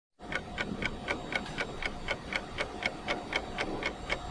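Steady clock-like ticking, about four ticks a second, even and regular, over a faint steady hum.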